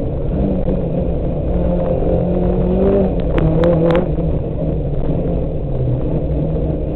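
Volkswagen Golf 2 GTI 16V rally car's four-cylinder 16-valve engine driven hard, heard from inside the cabin, its pitch rising and falling with throttle and gear changes. A few sharp clacks come around the middle.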